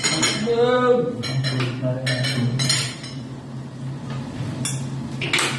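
Spoons and forks clinking against ceramic plates and serving dishes at a meal: several separate clinks, with a short voice about a second in.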